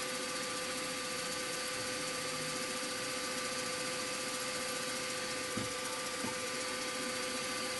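Milling machine spindle running steadily at 1000 RPM, turning a small 3/32-inch reamer as it is fed into a metal block: a constant hum with a steady whine. Two faint taps come near the end.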